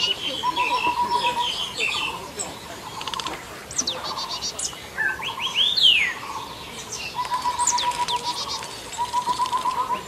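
Birds calling: high whistled notes that sweep steeply down in pitch, and fast trills held on one pitch, coming one after another every second or two.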